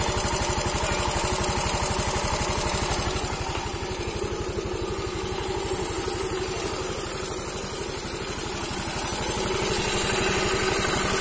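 Yamaha Mio M3 125 scooter's single-cylinder four-stroke engine idling steadily with its exhaust fitted. It runs smooth on a freshly fitted cylinder block and piston, replacing a set that had run rough after the engine ran out of oil.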